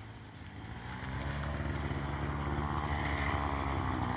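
Two-stroke chainsaw engine running steadily at low speed. It gets a little louder over the first second or so, then holds even.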